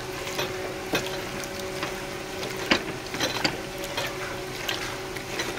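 Hand squelching and squishing through raw chicken coated in wet spice paste with onion and tomato, in an aluminium pressure cooker, with irregular small clicks. A steady faint hum runs underneath.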